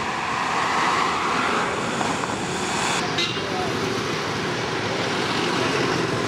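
City street traffic noise: a steady wash of passing cars and motorbikes, with indistinct voices mixed in.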